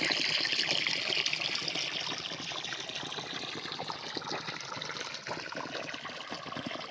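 Irrigation water pouring steadily onto the ground around a mango tree, slowly growing fainter.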